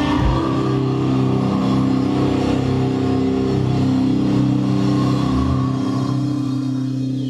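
A metal band's distorted electric guitars and bass letting a chord ring out after a drum hit at the start, a steady held drone ending the song; the deepest part drops away about five and a half seconds in.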